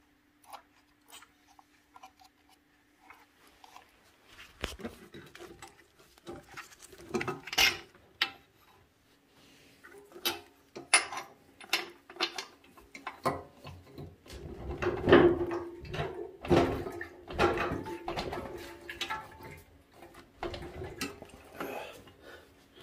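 Scattered clicks, knocks and rustles of hands handling scooter parts and wiring. They are sparse at first and grow busier and louder from about four seconds in, over a faint steady hum.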